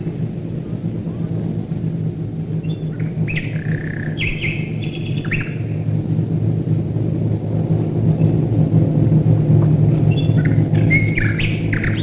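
A nightingale sings short whistled and slurred phrases in two bursts, a few seconds in and again near the end. Under them runs the steady drone of many Wellington and Lancaster bombers' piston engines flying overhead, growing louder through the second half.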